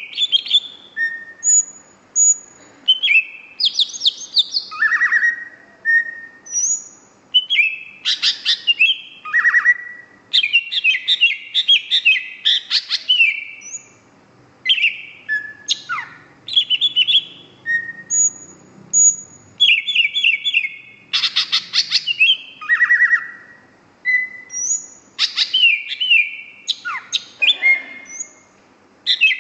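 Cucak hijau (greater green leafbird) singing continuously, a fast, varied run of whistled notes, trills and quick sweeping phrases with barely a pause between bursts.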